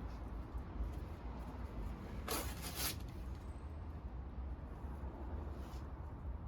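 Wood and bamboo bonfire burning: a steady low rumble under a faint crackle, with a brief hiss a little over two seconds in.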